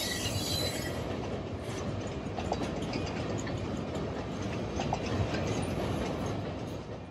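Freight train rolling across a steel lift bridge, a steady rumble of wheels on rail with clacking at the rail joints. A brief high wheel squeal comes in the first second.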